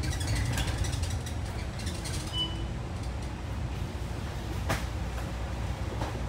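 Moving city bus heard from inside the cabin: a steady low rumble with interior fittings rattling and creaking, a brief high squeak about two seconds in, and a couple of sharp knocks near the end.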